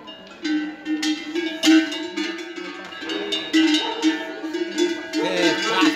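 Cattle bells (cencerros) on the necks of steers clanging and ringing in a dense, irregular jangle as the animals shift about, starting to ring loudly about half a second in.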